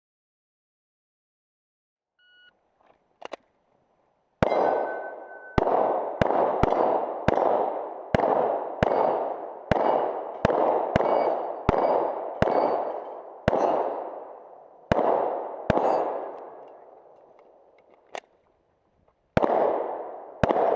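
A rapid string of pistol shots, each ringing out with a long echo, fired about one or two a second. They stop for a few seconds near the end, then two more follow.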